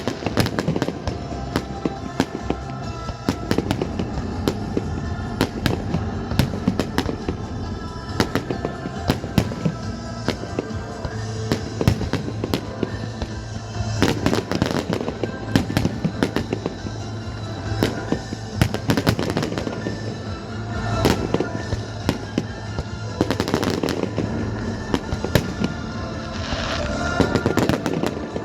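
Fireworks display: a dense, continuous run of bangs and crackling bursts, some louder clusters in the middle and near the end, over loud accompanying music.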